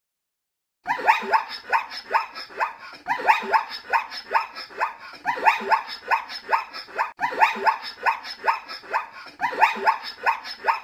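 A dog barking rapidly and repeatedly, about four barks a second, in runs of several barks separated by short breaks. It starts about a second in.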